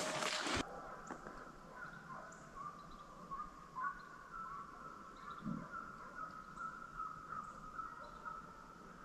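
A rustling noise stops about half a second in, leaving faint distant animal calls in a wavering, unbroken chorus, with a few short bird chirps.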